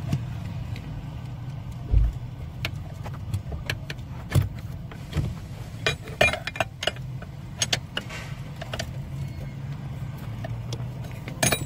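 Irregular clicks and light metallic clinks of a wrench turning out a 14 mm bolt on a car's steering column, over a steady low hum, with one louder knock about two seconds in.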